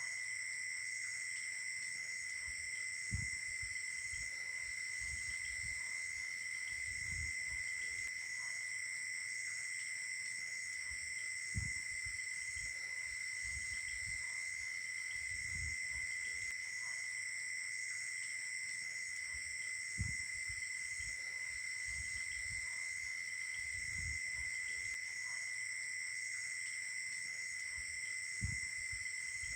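Night chorus of crickets and other insects: several steady high-pitched trills layered together, one of them pulsing evenly about once a second. A few short, soft low thumps come at even intervals of about eight to nine seconds.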